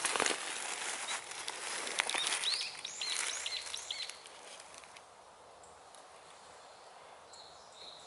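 Rustling and crackling of brush and twigs close to the microphone for about the first four seconds, with a bird's quick run of high chirps around three seconds in. Then it quiets, and near the end a bird repeats a short high note about two or three times a second.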